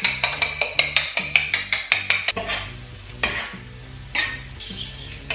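A fork beating eggs in a bowl: quick, even clicks about five a second that stop a little before halfway. Then a soft hiss from the frying pan with a couple of light knocks, all over background music with a steady bass line.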